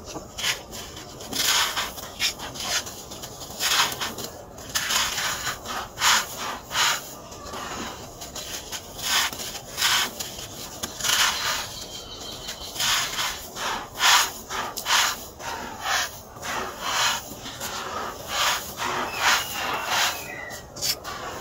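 Hands working fine gray sand: scooping it up, crumbling damp clumps and letting the grains pour from the fists. It is heard as a run of short, irregular gritty rustles.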